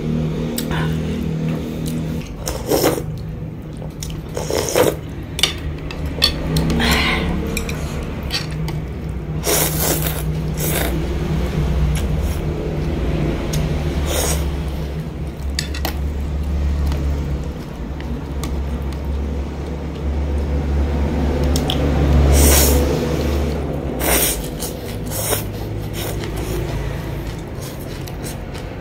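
Mukbang eating sounds: rice noodles and broth slurped in from a spoon and chopsticks, with repeated short clicks and clinks of the utensils against a ceramic bowl. A steady low hum runs underneath.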